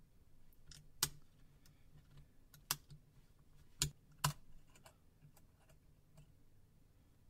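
Light, sharp clicks of a metal dental pick prying at the sides of the Nokia Lumia 625's bottom shielding lid to release it: four clearer clicks spread over a few seconds, with fainter ticks in between.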